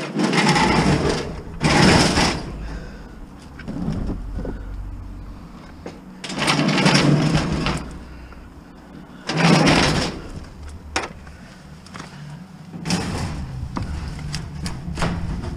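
A metal electric stove scraping and scuffing across the floor as it is shifted away from the wall, in about five separate noisy shoves with quieter shuffling between.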